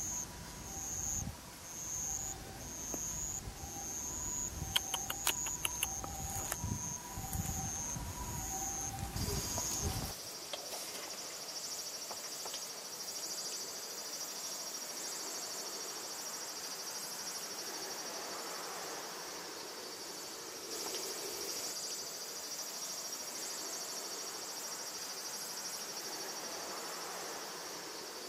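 Insects outdoors. For the first ten seconds a high chirp repeats about once a second over a low rumble; then it cuts off suddenly and a steady high insect drone remains.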